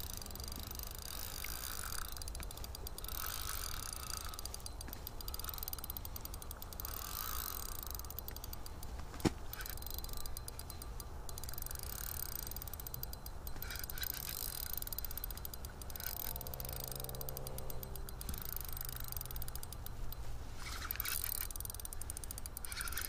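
Ice-fishing spinning reel clicking in short stretches as the line is worked against a heavy hooked lake trout, over a steady low rumble, with one sharp knock about nine seconds in.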